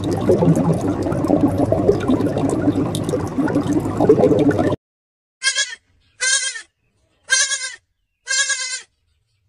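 Steady rushing water noise for the first few seconds, which cuts off abruptly. A goat then bleats four times, about a second apart, each bleat short and quavering.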